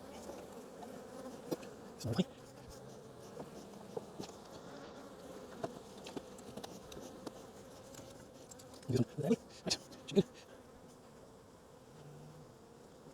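Honey bees buzzing steadily around an open hive, with a few sharp knocks from handling: one about two seconds in and a quick cluster of four near the end, the loudest sounds here.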